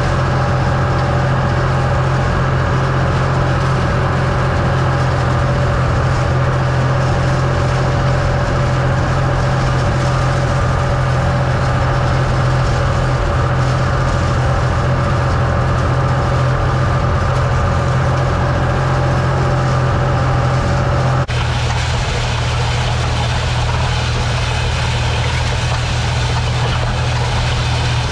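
Case International 385 small diesel tractor engine running steadily while pulling a hay rake. About three-quarters of the way through, its tone and loudness shift abruptly.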